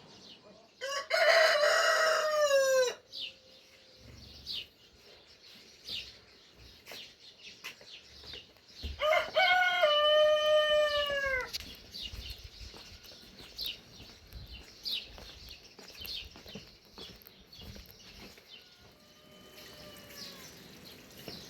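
A rooster crowing: two loud crows, one about a second in and one near the middle, each about two seconds long and dropping in pitch at the end, then a fainter crow near the end.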